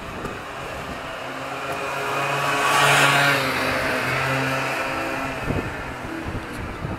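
A motorbike passing close by: its engine sound swells to a peak about three seconds in, then fades as it pulls ahead.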